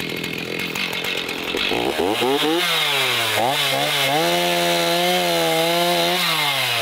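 Two-stroke chainsaw idling, then revved up about two seconds in and cutting through a fallen tree limb. The engine pitch dips and climbs under load, holds high, then drops back toward idle near the end.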